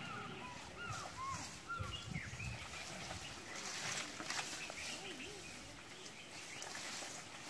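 Wild birds calling with short, repeated chirping notes, most of them in the first half, over outdoor ambience with a brief low rumble about two seconds in.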